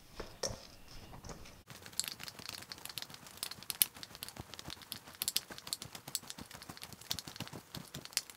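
Hands kneading raw ground pork and spices in a stainless steel bowl: a dense, irregular run of small squishing noises, growing busier about two seconds in.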